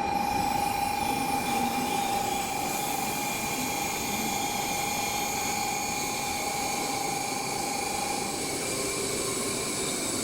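Shinkansen bullet train noise: a steady high electrical whine over a noisy rumble, the whine fading out about eight seconds in.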